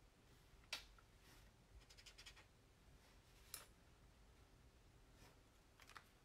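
Near silence with a few faint clicks and light scratches from handling and colouring with alcohol markers: a single click about a second in, a short cluster around two seconds, and another click or two later on.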